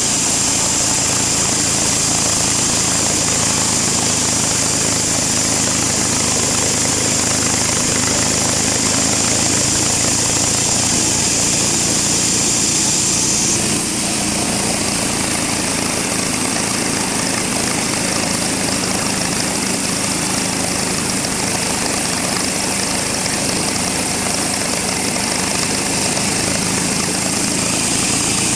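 Sawmill machinery running steadily and loudly, with a high whine over the din that stops about halfway through.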